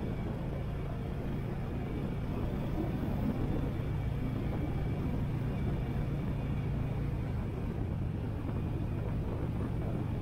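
Harley-Davidson Sportster 883's air-cooled V-twin engine running steadily, heard from a microphone on top of the rider's helmet.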